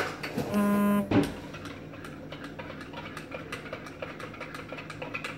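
A metal spoon stirring in a ceramic mug, clinking lightly against the sides several times a second. Near the start a short steady buzzing tone and a clack come as a kitchen utensil drawer is worked.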